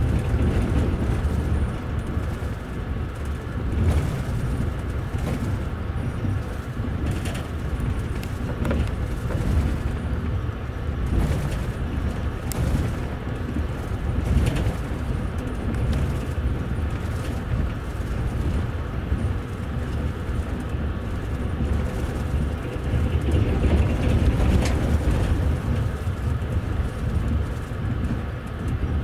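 Running noise of a moving double-decker passenger rail coach heard from inside: a steady low rumble from the wheels and running gear, with occasional sharp clicks and knocks of the wheels over the track.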